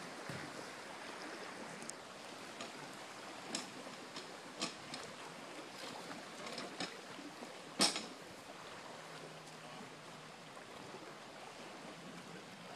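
Steady wash of lake water lapping against a shoreline break wall, with a few sharp knocks and clacks from wooden dock boards being handled, the loudest about eight seconds in.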